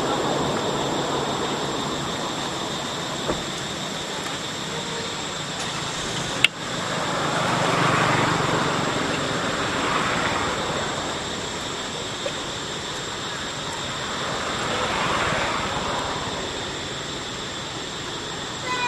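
Steady outdoor background noise: a broad hiss with a constant high thin whine, swelling a few times, with one sharp click about six and a half seconds in.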